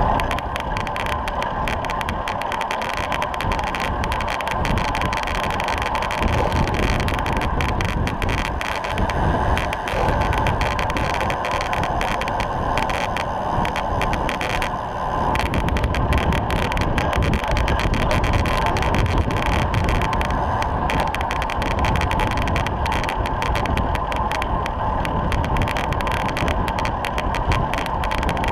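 Racing road bikes riding fast in a tight bunch on tarmac, at about 22 to 26 mph: a steady rush of tyre and wind noise.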